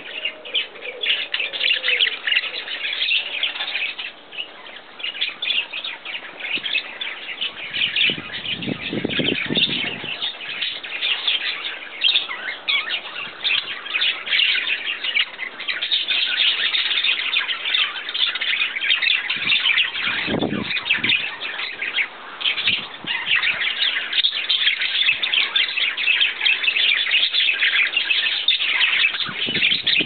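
Budgerigars chattering continuously, a dense stream of high chirps, with two short low-pitched noises about nine and twenty seconds in.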